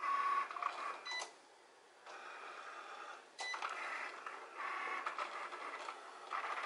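Cricut Explore-series cutting machine at work on a print-then-cut sheet: its carriage and roller motors whir in runs of about a second with short pauses, a near-quiet stretch about a second and a half in, and a couple of light clicks.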